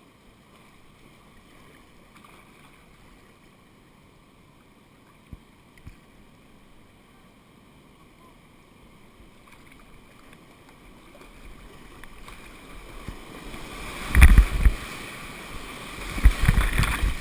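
Kayak drifting and paddled on calm river water, quiet with a couple of faint knocks, then the rush of a whitewater rapid builds and water crashes over the boat in loud splashing surges near the end.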